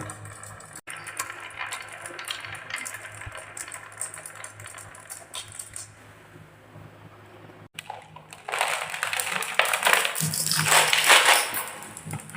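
Marbles rolling and clicking down a wooden marble run. About eight seconds in, it turns into a much louder, dense clatter of many marbles rattling together.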